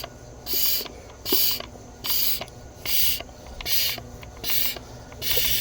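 Mityvac MV7201 hand-pumped fluid evacuator being pumped: seven steady strokes, each a short hiss of air, about one every 0.8 s, building vacuum to draw engine oil out of the excavator.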